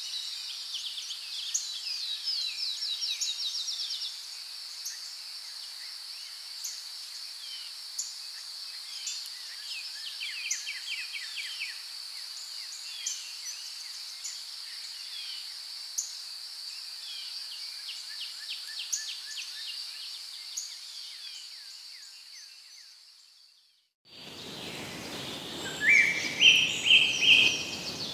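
Natural outdoor ambience: a steady, high insect drone with birds chirping and trilling over it, some in quick rapid runs. It fades out about 23 seconds in, and a fuller ambience with louder, stepped bird calls follows.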